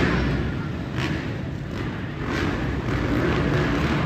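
Dirt bike engines running on an indoor supercross track, mixed with a general arena din.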